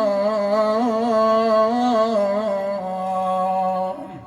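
A single male voice chanting a Muharram mourning elegy for Karbala, holding a long, wavering ornamented note at the end of a line of verse. The note drops a little in pitch and fades out about four seconds in.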